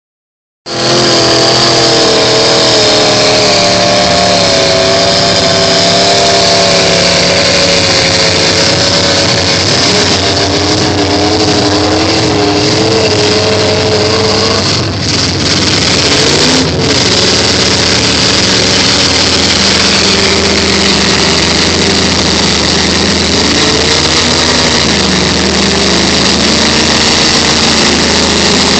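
Off-road pickup truck engines running and revving while driving through mud, their pitch wavering up and down over a steady rush of noise.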